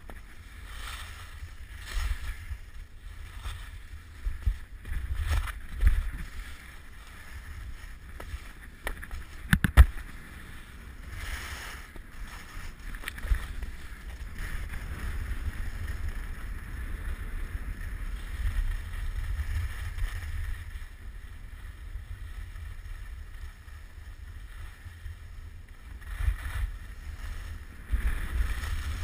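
Skis hissing and scraping over packed snow at speed, with wind buffeting the microphone in a steady low rumble. Several sharp knocks break in, the loudest about ten seconds in.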